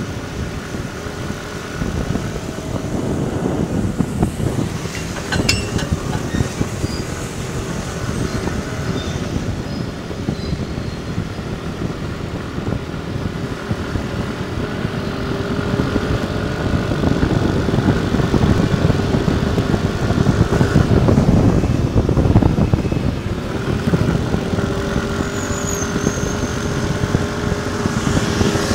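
Motor scooter engine running steadily while riding uphill, with wind buffeting the microphone.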